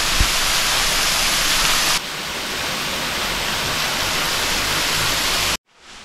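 Steady rushing of a small waterfall splashing into a rock pool. It drops to a lower level about two seconds in and cuts off suddenly near the end.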